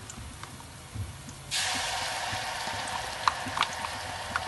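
Ginger-garlic paste hitting hot oil and fried onions in a pan on high flame: faint frying gives way to a sudden loud sizzle about a second and a half in. A few sharp ticks come through the sizzle near the end.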